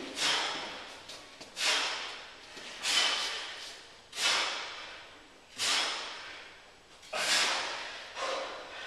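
Hard, forceful breaths out during a set of bench dips and tricep kickbacks, about one every second and a half. Each starts suddenly and trails off.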